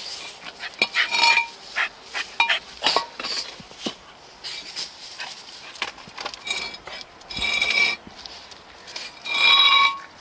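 A pet dog whining in several short, high-pitched cries, the loudest near the end, with scattered light clicks and clinks.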